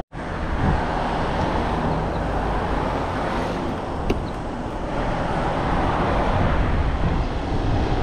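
Steady rushing of wind and road noise while riding along a road.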